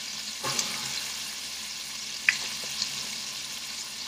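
Food frying in oil in a pan, a steady sizzle, with a few light clicks, the sharpest about two seconds in.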